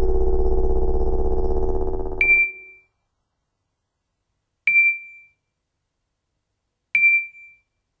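A steady low droning hum that cuts off suddenly about two and a half seconds in. Then three short, high pings like a small bell ding, spaced about two and a half seconds apart, each starting with a click and dying away quickly.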